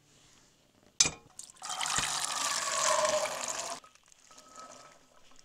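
Boiled navy beans and their starchy cooking water poured from a metal pot into a cast iron pot, splashing heavily for about two seconds and then thinning to a trickle. A single sharp knock comes about a second in, just before the pour.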